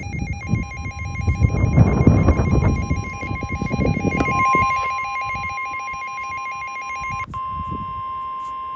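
Midland WR-300 NOAA Weather Radio going into alert: the receiver's fast warbling alarm over the broadcast's steady 1050 Hz Warning Alarm Tone, which signals that a warning is about to be read. The warble stops about seven seconds in and the steady tone holds on alone. Wind rushes and gusts on the microphone, strongest in the first few seconds.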